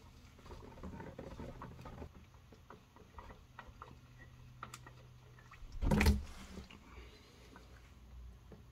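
Engine oil trickling and dripping from the just-removed oil filter into the drain pan, with faint handling clicks. One brief, louder bump about six seconds in.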